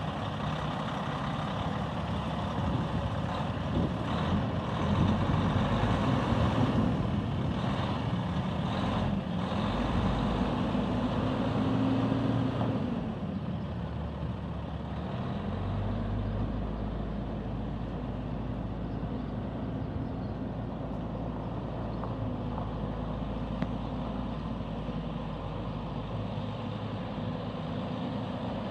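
2006 Kenworth T800 truck tractor's diesel engine pulling away. It is loudest and rises in pitch over the first dozen seconds, then settles to a steadier, quieter run as the truck drives off slowly.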